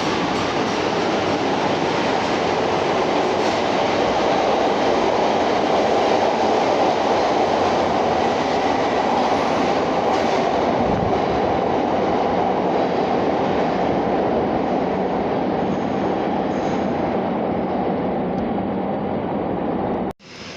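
CTA 'L' rapid-transit train running on the track: a steady, loud rumble of wheels on rail that cuts off abruptly near the end.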